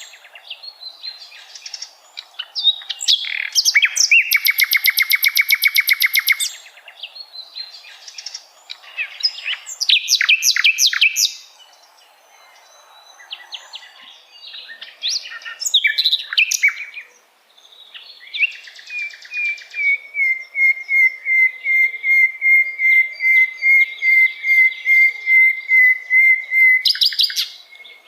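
Common nightingale singing: a sequence of varied phrases, clear whistles and a fast rattling trill, with pauses between them. Near the end comes a long run of evenly repeated piping notes on one pitch, about three or four a second.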